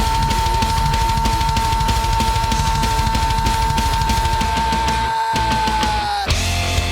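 Heavy rock music with a driving drum kit and guitar. A single high note is held over the drums for about six seconds, then breaks off.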